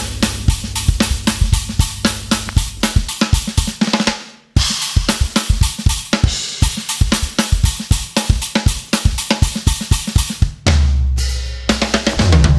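Drum kit playing a busy, driving groove of kick, snare, hi-hat and cymbals over electric bass. The bass drops out about two seconds in, and everything stops dead for a moment about four and a half seconds in. The drums then carry on alone until the bass comes back in near the end.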